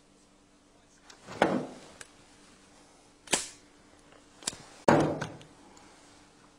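A revolver handled and dry-fired on an empty chamber: a few short, sharp clicks and knocks of the gun and its mechanism, the trigger falling with no shot. The loudest is a knock about five seconds in as the gun is set back down on the table.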